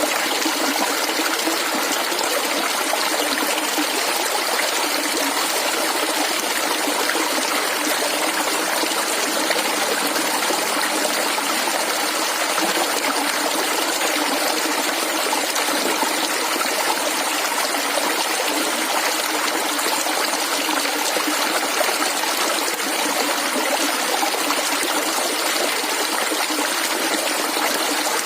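Running water gurgling and trickling steadily, like a small clear stream flowing over stones.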